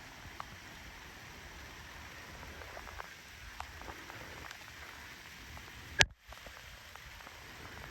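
Steady rain falling, with scattered taps of drops. About six seconds in there is one sharp click, followed by a brief cut-out of the sound.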